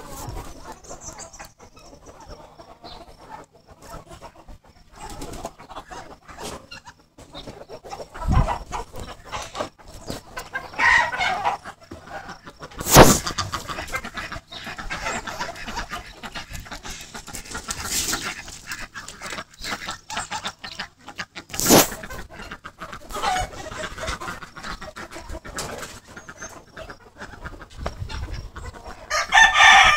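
Chickens clucking and calling, broken by two loud, sharp knocks. A rooster starts to crow near the end.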